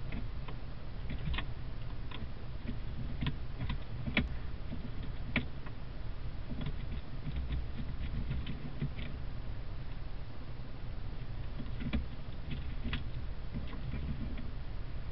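A vole working at paper: irregular little clicks and scratches, several in quick runs, with a few louder ones, over a low steady hum.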